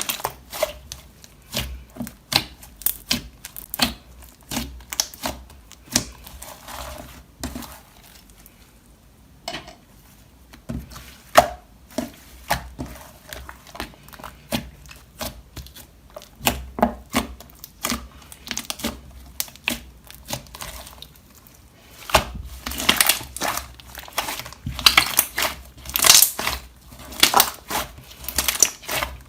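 Slime being kneaded and squished by hand, making irregular sticky clicks and little pops. The clicking thins out for a couple of seconds about a third of the way through and grows denser and louder near the end.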